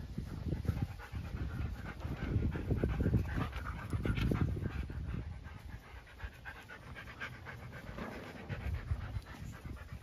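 A dog panting in rapid breaths, heaviest in the first half and quieter after about six seconds in.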